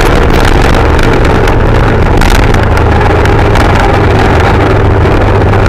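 Tuned scooter engine with an aftermarket cam and exhaust running hard at high speed, its revs easing off slightly as the scooter slows, under heavy wind rush on the microphone.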